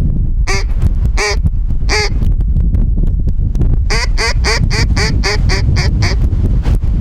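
Mallard hen-style quacking: three spaced quacks in the first two seconds, then a quick run of about eight shorter quacks at around four a second from about four seconds in. A steady low wind rumble lies underneath.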